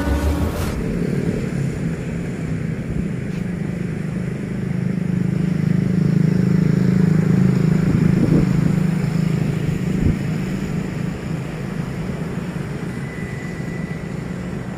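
Road traffic: cars and motorcycles running past in a steady drone, swelling louder in the middle as vehicles go by.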